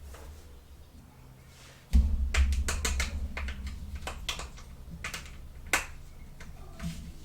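Small plastic toy playset pieces being handled: a scattered series of light clicks and taps, with a dull bump about two seconds in.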